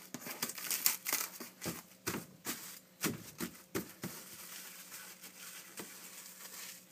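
Plastic cling wrap crinkling and rustling in irregular crackles as it is handled and stretched to cover the dough. The crackling is busiest in the first four seconds and thins out after.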